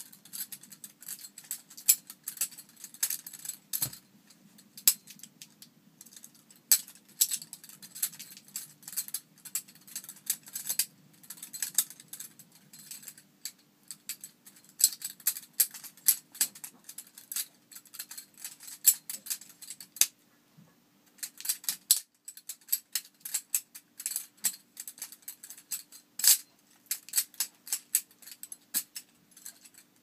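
Bear and Son balisong (butterfly knife) being flipped: fast, irregular metal clicks and clacks as the swinging handles strike each other and the blade tang. A few brief pauses break up the runs.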